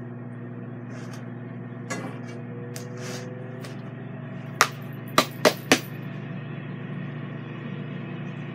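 Ninja Foodi XL grill's fan running with a steady hum while it preheats on air crisp. A few sharp knocks sound over it: one about two seconds in, then four in quick succession a little past halfway.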